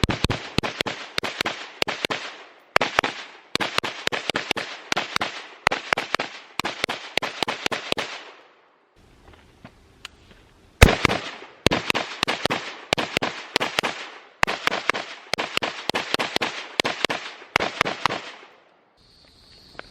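Rapid gunfire from a Springfield Saint Edge AR-15 pistol: strings of sharp shots several a second, with a pause of about two seconds around the middle and another near the end.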